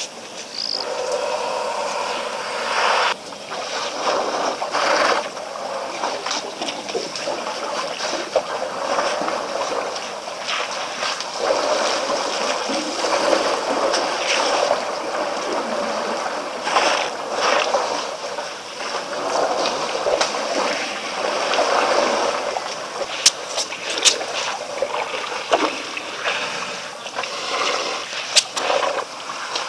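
African elephants wading and drinking in a waterhole: water splashing and sloshing around their legs and trunks, with a few sharp splashes near the end.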